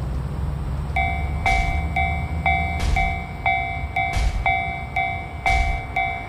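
Japanese level-crossing bell ringing its "kan-kan" about twice a second, starting about a second in. Under it runs the low rumble of a passing train, with a loud clack every second and a half or so.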